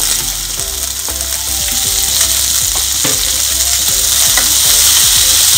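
Sliced onions and chopped garlic sizzling in hot mustard oil in a kadhai, stirred with a wooden spatula. The sizzle grows louder toward the end.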